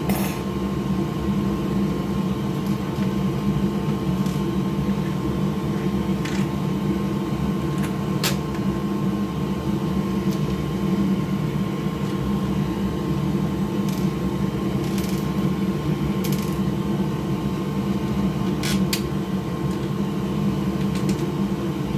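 Steady machine hum with a faint high tone over it, and scattered light clicks of plastic parts as a PS5 console's housing is handled and fitted back on.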